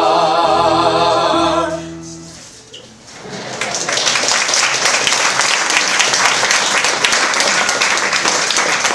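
A cast of singers holds the final chord of a song with vibrato, over low sustained accompaniment, fading out about two seconds in. Audience applause then starts about three seconds in and keeps going.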